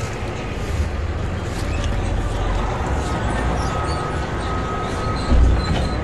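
Steady outdoor street noise: an even rush with a low rumble. A brief low thump comes about five and a half seconds in, and a faint steady high tone runs through the second half.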